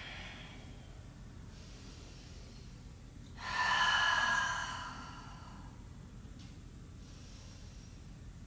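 A yoga instructor breathing audibly: one clear, drawn-out breath about three and a half seconds in, lasting about a second and a half, with a fainter breath fading out at the very start.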